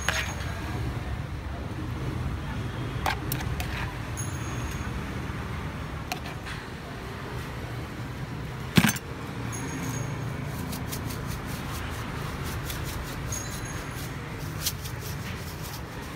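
Steady low rumble of street traffic, with light clicks and taps of metal tongs against a plastic bowl and the tray as shredded coconut is picked up and laid out. One sharp knock about nine seconds in.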